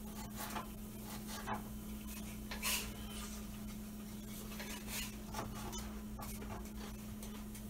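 Light kitchen clatter: scattered scrapes and taps of utensils and cookware, over a steady low hum.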